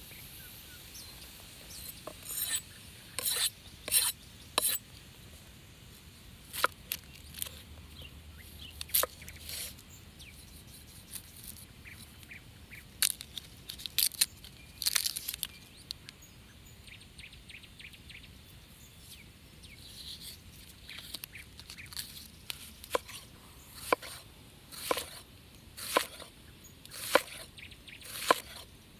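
A wood campfire crackling, then a knife working an onion: peeling it, then slicing it into rings on a wooden cutting board, with crisp cuts about once a second near the end.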